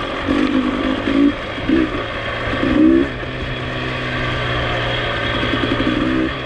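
Dirt bike engine running, blipped with short bursts of throttle every second or so in the first three seconds, then held steadier, with one more blip near the end.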